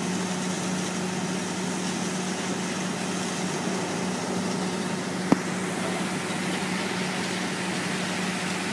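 Steady drone of a running engine under a steady rush of water from fire hoses. One sharp click about five seconds in.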